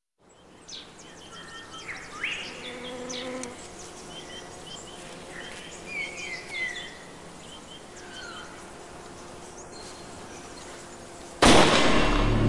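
A bee buzzing over chirping and whistling garden birds. Near the end this is cut across by a sudden, much louder burst of noise.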